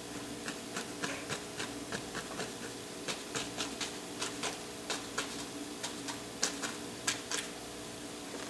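Paintbrush dabbing oil paint onto a stretched canvas: a run of faint, irregular taps, two or three a second, over a steady low hum.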